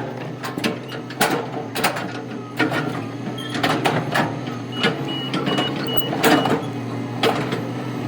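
Heavy equipment running steadily, with repeated clanks and knocks, and a backup alarm giving about five short beeps about five seconds in.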